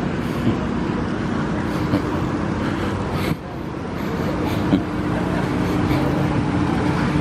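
City street traffic: a steady hum of running vehicle engines over general road noise, dipping briefly a little over three seconds in.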